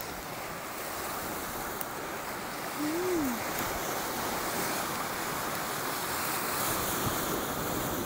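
Steady rush of surf and strong wind on an open beach. About three seconds in there is a brief low tone that rises and then falls.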